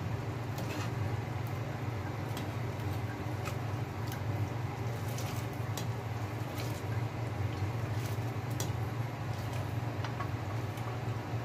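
Stainless ladle stirring and scooping broth in a stainless steel pot, with light metal-on-metal clinks about once a second, over a steady low hum.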